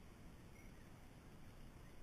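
Near silence: faint, steady background noise with no distinct event.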